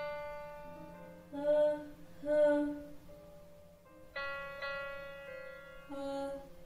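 A piano note struck and left to ring, then a woman singing two short 'ha' sounds on that pitch. About four seconds in, a slightly lower piano note rings out and is answered by another sung 'ha' near the end. This is a vocal exercise of 'ha-ha' on descending pitches.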